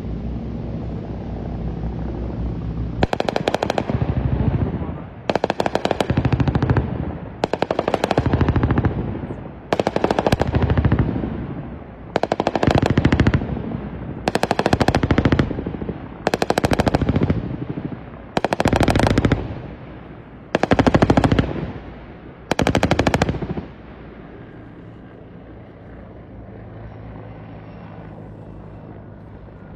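T129 ATAK attack helicopter's 20 mm three-barrel nose cannon firing about ten rapid-fire bursts of roughly a second each, one every two seconds or so, over the steady hum of the helicopter. The hum carries on alone after the last burst.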